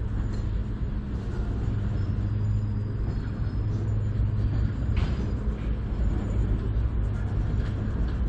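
CN freight train's empty flatcars rolling past on the rails, a steady low rumble and drone of wheels on track, with a brief sharper clank about five seconds in.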